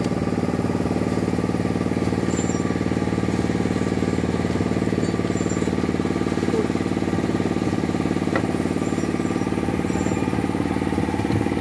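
A small engine running steadily at a constant speed, its even drone unchanged throughout.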